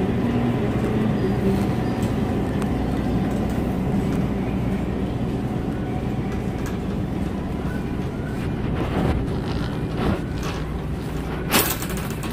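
Shopping cart rolling along a supermarket floor, a steady rumble with light rattles and a sharp clack about a second before the end, over a steady low hum.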